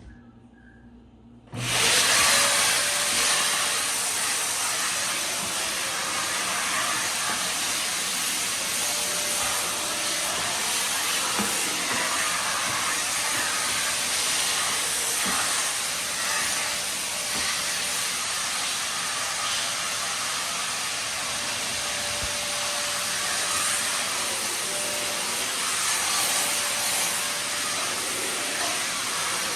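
A steady loud hiss, with a faint steady whine in it, that starts abruptly about a second and a half in.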